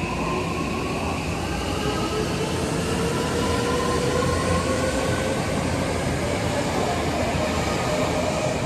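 Odakyu 5000-series electric train accelerating away from a stop, its Mitsubishi full-SiC VVVF inverter and traction motors giving several whine tones that climb slowly in pitch as it gathers speed, over steady wheel-on-rail running noise.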